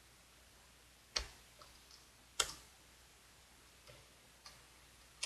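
Computer keyboard being typed on: a few scattered key taps with two sharper strikes about a second apart, as a short console command is entered.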